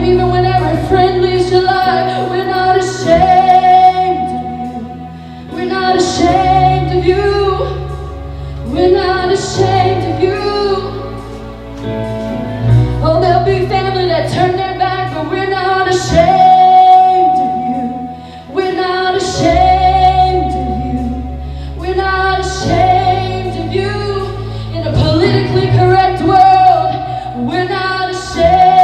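Live worship band playing a slow song while a woman sings, over long held bass notes that change every few seconds.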